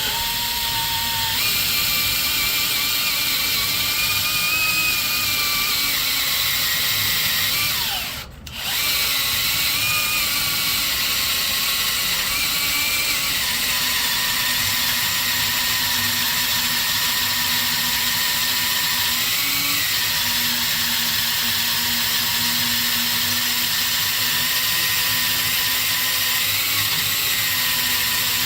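Power drill boring into a steel chassis frame rivet, running steadily under load with a whine that wavers in pitch. It stops briefly about eight seconds in and starts again.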